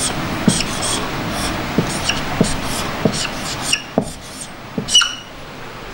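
Marker pen writing on a whiteboard: a run of short strokes, a few with a brief high squeak, over a steady hiss that drops about four seconds in.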